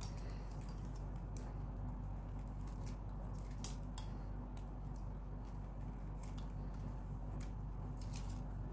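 Plastic craft wire (PVC weaving wire) being pulled and knotted by hand: irregular light clicks and ticks as the stiff strands slide and snap against each other, a few a second, over a steady low hum.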